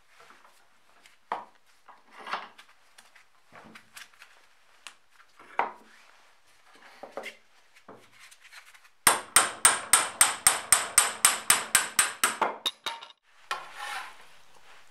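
Hammer blows on a rusty axe head clamped in a steel bench vise: a fast run of about twenty sharp, ringing metal strikes, some six a second, lasting about three seconds. Before it come scattered knocks and clunks of the axe head being handled and set in the vise, and a short scrape follows near the end.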